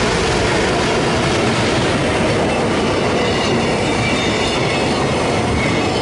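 A blue EF510 electric locomotive towing an unpowered locomotive passes close by, its wheels rumbling and clattering on the rails, with thin high wheel squeals in the middle of the pass.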